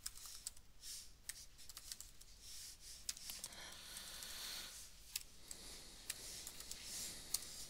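Computer keyboard typing: scattered, irregular key clicks as a short name is typed and corrected, with a soft hiss in between and a sharper click near the end.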